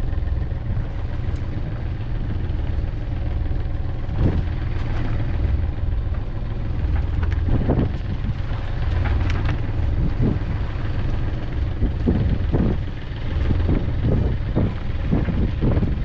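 Small yacht motoring through choppy sea: the engine's steady low drone, with wind buffeting the microphone and waves splashing against the hull now and then, most often near the end.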